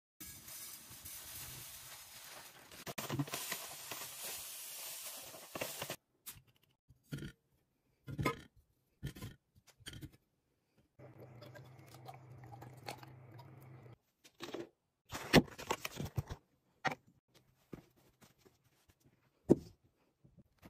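Faint handling noises of bathroom items being moved and set down: a few seconds of rustling hiss, then scattered short clicks and knocks, with a steady low hum for a few seconds in the middle.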